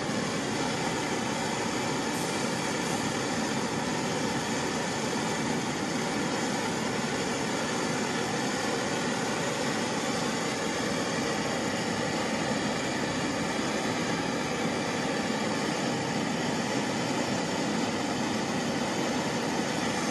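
Hand-held gas torch flame burning with a steady hiss, preheating a brass trumpet valve casing before it is fluxed and soft-soldered.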